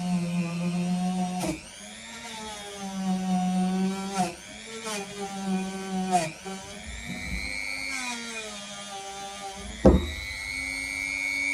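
A Dremel rotary tool whining as it polishes surface rust off a carbon-steel blade. Its pitch drops and recovers several times as it is pressed onto the metal and eased off, with a few sharp ticks of contact, the loudest about ten seconds in.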